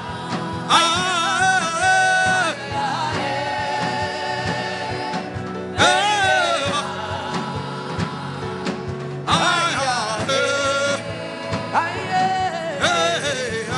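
Gospel worship music: a voice sings long, wavering held phrases with pauses between them, over sustained instrumental backing and a steady beat.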